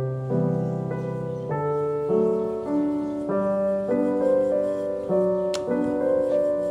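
Background solo piano music, a gentle melody of separate notes struck one after another. There is a single brief click about five and a half seconds in.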